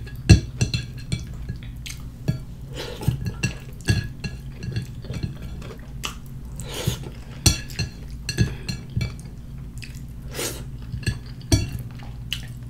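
Eating by hand: irregular wet smacks and clicks of chewing and lips, with fingers and long nails tapping on a plate while she picks up food.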